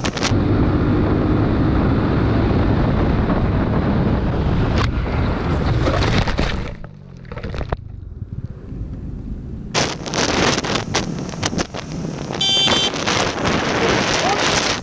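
Motorcycle riding at road speed, with wind buffeting the helmet-mounted microphone over the engine. There is a short drop about seven seconds in, then more wind noise with sharp knocks and a brief high tone near the end.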